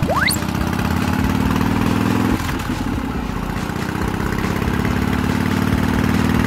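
Motor scooter engine sound effect running steadily, cutting briefly about two and a half seconds in, then resuming with its pitch creeping up as if speeding along. A quick rising whistle sounds at the very start.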